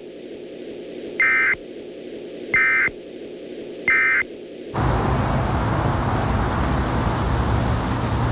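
Three short warbling EAS end-of-message data bursts, a little over a second apart, marking the end of the emergency alert. About two thirds of a second after the last burst, loud steady static hiss with a low hum sets in suddenly.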